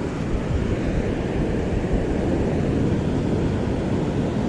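Steady rush of ocean surf mixed with wind buffeting the microphone, heaviest in the low end, with no distinct tones or knocks.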